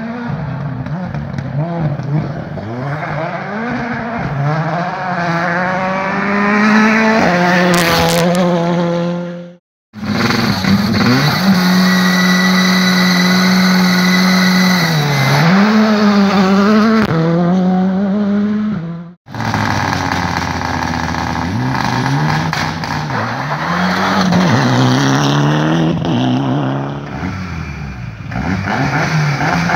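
Rally cars' turbocharged four-cylinder engines revving hard, in three passes cut apart by two brief silences. First a car in the distance, its revs climbing steadily. Then a Škoda Fabia R5 holding high revs before dipping and rising again, then a Mitsubishi Lancer Evolution whose revs rise and fall through gear changes.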